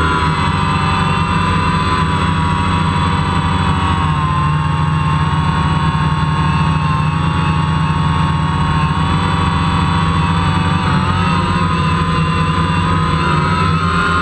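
DJI Phantom quadcopter's motors and propellers, heard from the GoPro mounted on the craft: a loud, steady whine of several close pitches that waver slightly up and down together as the drone hovers.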